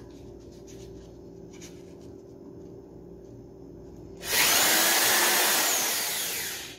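Corded electric drill boring a hole through the side of a thin plastic flowerpot: after a few seconds of light handling clicks, the drill starts about four seconds in, runs loudly for about two and a half seconds, and fades as it winds down.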